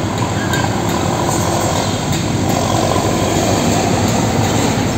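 Diesel engine of a Hino fuel tanker truck running as the truck drives past, with steady road noise.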